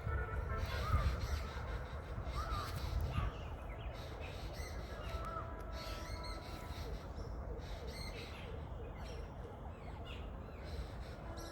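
Birds calling in short, repeated arched notes, with a quicker run of small notes in the middle, over a steady low rumble.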